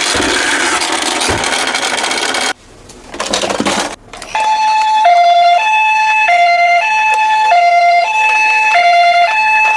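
A loud rough noise that cuts off about two and a half seconds in, then, after a short lull, a toy ambulance's electronic two-tone hi-lo siren starts about four seconds in, switching between a higher and a lower tone about every half second.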